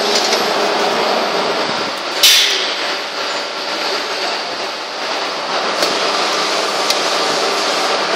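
Steady machine-shop noise from a robotic gear-handling cell. About two seconds in comes a short, sharp hiss of compressed air from the robot's pneumatic gripper, and a couple of light clicks follow later.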